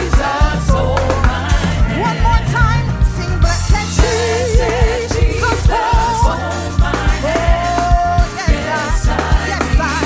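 Gospel music from a band of bass, drums and keyboards keeping a steady beat, with a singer's held, wavering notes and runs above.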